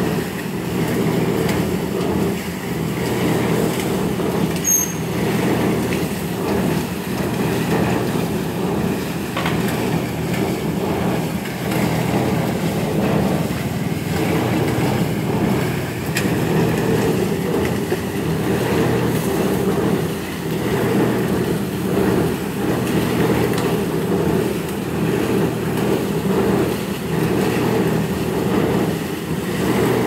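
Concrete mixer running steadily, its drum turning with a constant hum, with scrapes and clinks of crushed stone being scooped into buckets over it.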